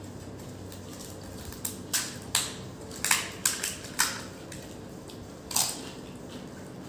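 Crisp, hollow panipuri shells cracking and crunching in several short, sharp bursts, most of them between about two and four seconds in and one more near six seconds.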